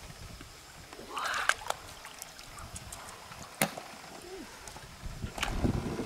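Shallow river water splashing and sloshing as hands dig for freshwater mussels, with two sharp clicks of mussel shells knocking together, one about a second and a half in and one near the middle. Low rumbling water movement rises near the end.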